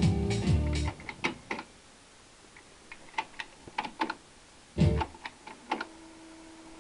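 Music from the stereo cuts off about a second in, followed by a series of sharp clicks from the controls of a vintage stereo receiver and cassette deck being worked. There is one louder thump a little under five seconds in, and a faint steady hum starts near the end.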